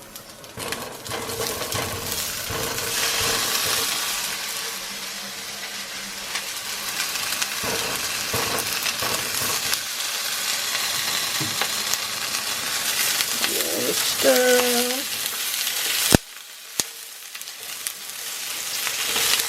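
Sliced chicken and apple sausages sizzling in olive oil in a hot skillet, with the scrape and clatter of a utensil stirring them. About three-quarters of the way through there is a sharp click, and the sizzle is briefly quieter before it builds again.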